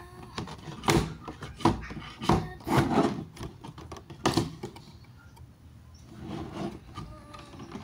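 Hands handling a boxed Funko Pop in a clear plastic protector case close to the microphone: plastic rubbing and scraping with a run of knocks, quieter from about halfway through.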